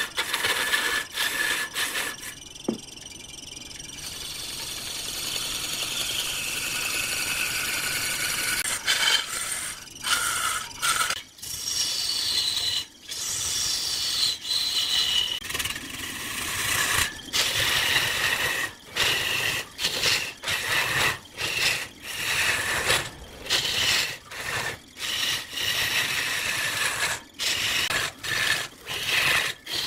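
A turning tool scraping into spinning wood on a woodturning lathe. High whining tones slide down in pitch over a few seconds at a time. The cut breaks off in short gaps, about once a second in the second half.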